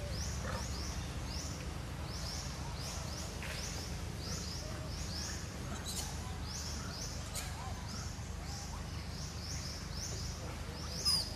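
Outdoor ambience: a short, high chirp repeats several times a second in runs, over a steady low rumble. A brief sharp sound stands out near the end.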